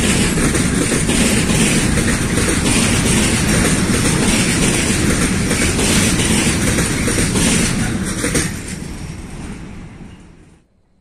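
Container freight train's loaded flat wagons rolling past, a steady rumble with wheels clattering on the rails. After the last wagon goes by, about eight seconds in, the sound fades away, then cuts off near the end.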